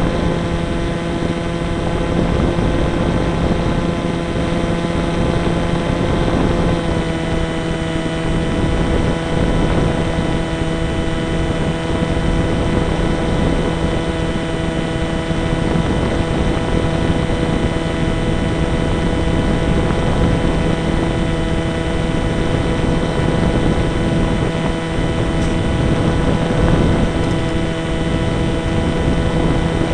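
Model airplane's motor and propeller running at a steady pitch, with wind rushing over the microphone. The pitch steps up slightly about seven seconds in.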